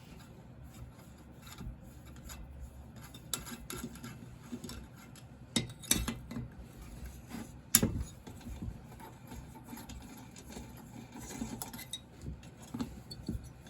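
Hand tools and metal chainsaw parts clinking and rubbing as the cylinder bolts of a Stihl MS661 are undone on the bench, with scattered small clicks and a few sharper clinks around the middle.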